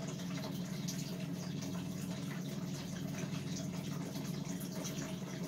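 Steady low hum of an electric floor fan running, with faint small clicks over it.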